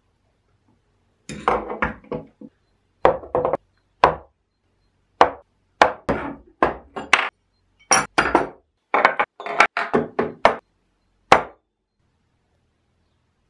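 Steel jack hammer bits and a chisel being set down one after another on a wooden workbench: a string of short knocks and clinks, stopping near the end.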